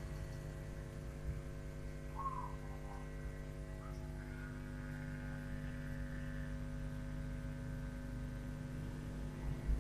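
Steady mains hum from a newly built power amplifier, coming through a loudspeaker with the volume fully up and no input connected. The hum is a low buzz with a stack of overtones, caused by the transformer's centre tap not yet being grounded to the chassis.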